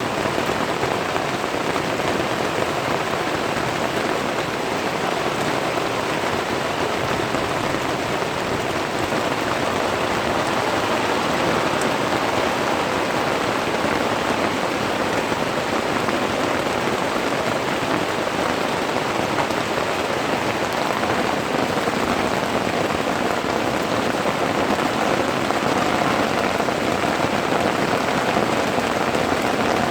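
Heavy rain falling in a steady downpour, a dense, even patter.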